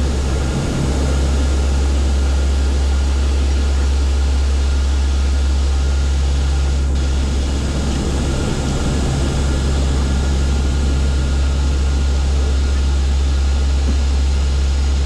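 NASA C-130's four turboprop engines and propellers running steadily at takeoff power during the takeoff roll, heard inside the cockpit: a deep, constant propeller drone under loud engine and rushing-air noise.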